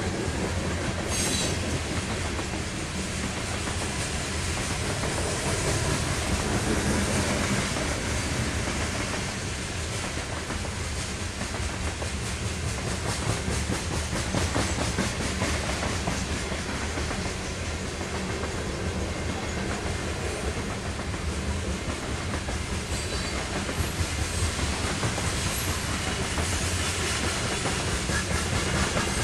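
Loaded covered hopper cars of a freight train rolling past, steel wheels clicking over rail joints over a continuous rumble.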